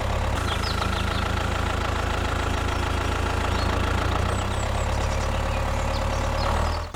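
Mini tractor engine idling steadily, a low even hum with faint short high chirps now and then; it cuts off abruptly at the very end.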